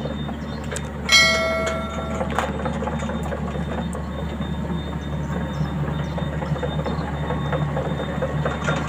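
Steady low drone of a heavy vehicle's engine running. About a second in, a horn sounds one blast of just over a second.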